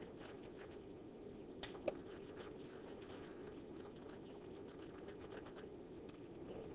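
Faint steady room hum, with a few light taps and scratches of a stylus on a tablet screen about two seconds in.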